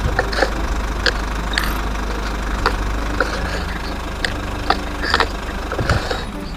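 Plastic toy excavator and bulldozer working sand into a toy dump truck's bed: irregular clicks and scrapes of plastic and sand grains, over a steady low rumble.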